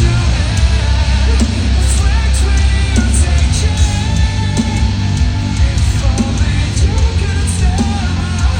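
Live heavy rock band playing loud, with distorted guitars, heavy bass, drums and a singer's voice, recorded from the crowd in an arena.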